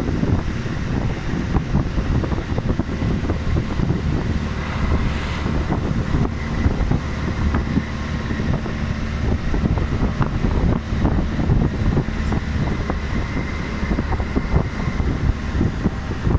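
Shuttle van driving, its engine and road noise heard from inside the cabin, with small rattles and knocks throughout and wind noise on the microphone.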